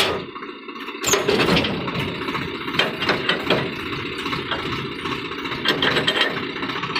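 XCMG XE80C excavator's diesel engine running under load, with metallic clanks and rattles. It dips briefly and comes back loud about a second in.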